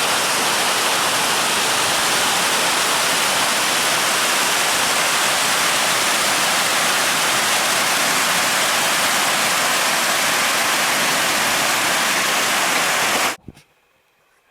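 Waterfall close to the microphone: a loud, steady rush of falling water. It cuts off abruptly about a second before the end.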